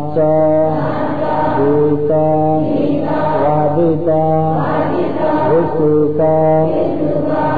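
Voices chanting a Pali precept in unison during the eight-precept uposatha ceremony, each syllable held on a drawn-out melodic tone.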